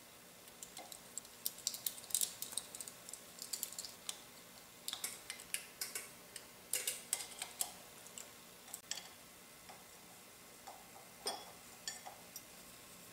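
Light metallic clicks and taps from a hex key and small metal parts being handled at the end of an electric motor's rotor, coming irregularly, thickest in the first nine seconds with a few more near the end.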